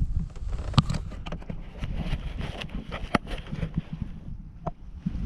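Irregular clicks and knocks of handling in a small fishing boat while a landed bass is held, over a low wind rumble on the microphone. The sharpest knock comes about a second in.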